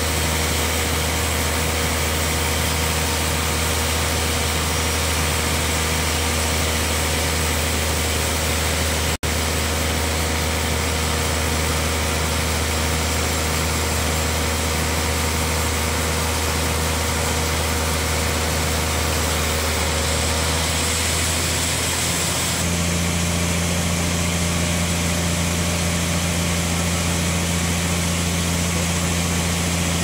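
Large industrial band sawmill running with a steady, deep machine hum while the blade saws a wide slab from a big log on the carriage. The sound cuts out for an instant about nine seconds in, and the tone of the hum changes about two-thirds of the way through.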